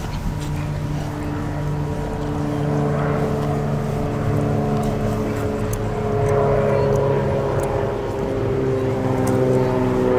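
A steady engine drone, its pitch falling slowly and its level growing somewhat louder in the second half.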